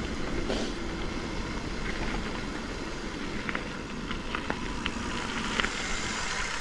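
Mountain bike rolling fast downhill over a rough, stony trail: a steady rumble of tyres on gravel, with scattered small clicks and rattles.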